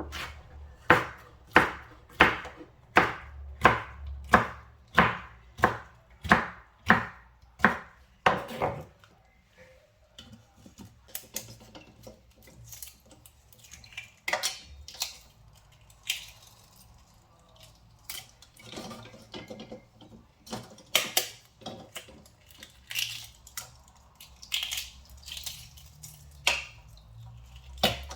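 Knife chopping on a cutting board in a steady rhythm of about two strokes a second, stopping around nine seconds in. After that come scattered, irregular knocks and clinks of kitchen utensils and dishes.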